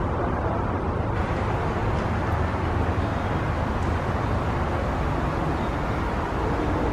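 Steady low rumbling outdoor background noise, even throughout, with no distinct events.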